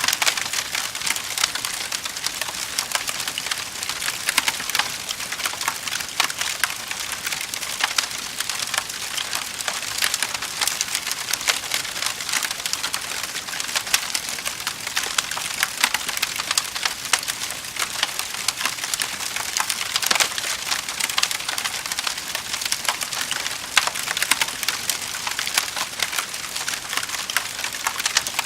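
Wood fire crackling in a fireplace: a dense, steady run of small pops and snaps over a hiss.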